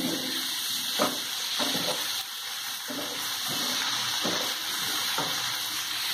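Chicken pieces sizzling in soy sauce in a frying pan, a steady hiss, while a wooden spatula stirs them with a short scrape against the pan every second or so.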